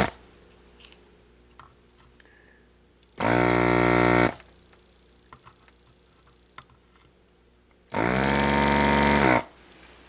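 Hakko FR-300 desoldering gun's vacuum pump running in two bursts, the first about a second long about three seconds in, the second about a second and a half long near the end. Each burst sucks molten solder off a relay's pins on a circuit board.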